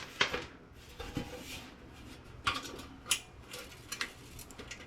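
Scattered light clicks and metal clinks of hand tools and parts on a network switch's sheet-metal case as its power plug socket is worked loose, about six separate knocks with quiet between them.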